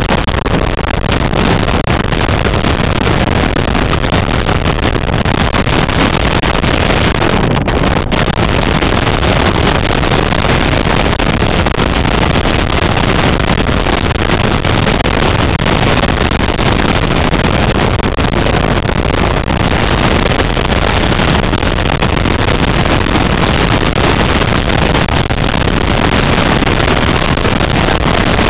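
Loud, steady rush of air moving through a round metal chute, running without a break.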